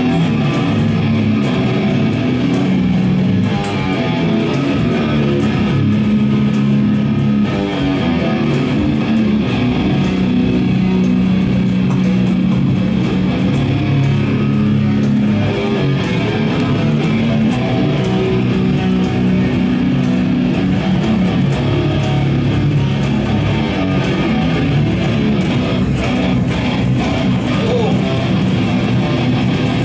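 Two electric guitars played together at a steady loud level, with sustained low notes ringing under the playing.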